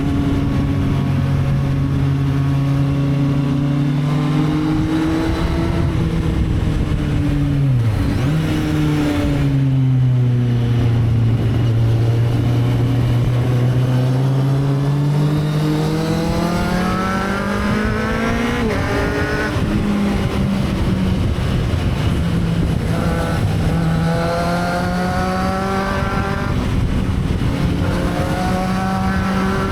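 Sport motorcycle engine under way. Its note dips and recovers about a third of the way in, then revs climb steadily in several runs, each cut short by a sudden drop in pitch as the rider shifts up a gear, about two-thirds of the way in and again near the end.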